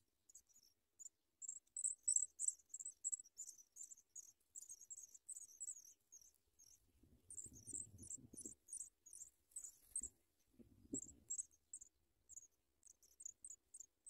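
Pipit nestlings begging in the nest: rapid, thin, high-pitched cheeps, uneven in spacing and pitch and densest in the first half. Low rustling comes twice a little past halfway.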